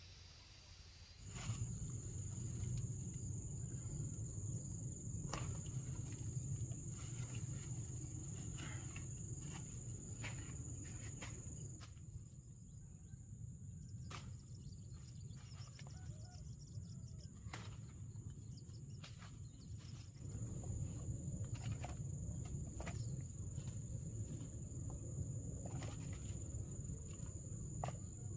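Insects trilling, one steady high-pitched note starting about a second in, over a low rumble, with scattered sharp clicks and knocks.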